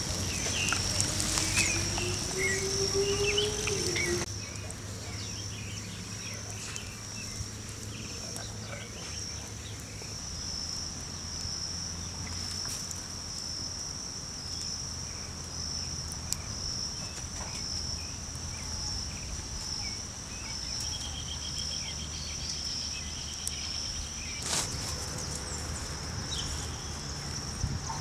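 Steady high chirring of insects, pulsing without a break. The first four seconds are louder, with scattered bird chirps and a low tone that rises in pitch.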